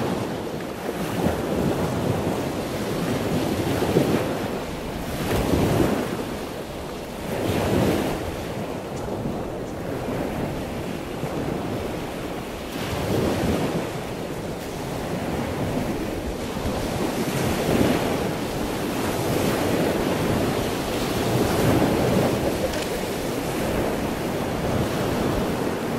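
Water washing in uneven surges every few seconds, like waves, with wind noise on the microphone.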